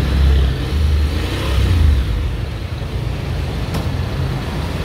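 Honda X-ADV's parallel-twin engine running, with the throttle opened twice, near the start and about two seconds in, while its DCT gearbox is still in neutral rather than D, so the scooter revs without pulling away.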